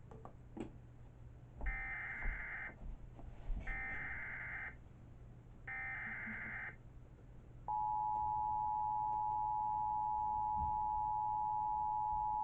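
Emergency Alert System SAME header: three roughly one-second bursts of warbling digital data tones, followed by the two-tone EAS attention signal (853 and 960 Hz together), a steady, loud dual tone held for about five seconds. This is the start of an EAS alert being relayed.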